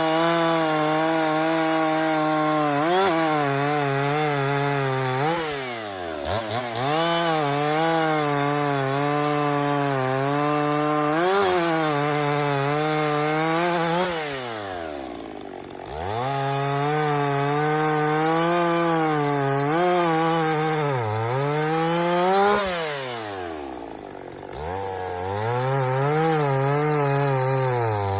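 Two-stroke chainsaw bucking a black walnut log, running at full throttle under load. Several times the engine falls back toward idle and revs up again between cuts.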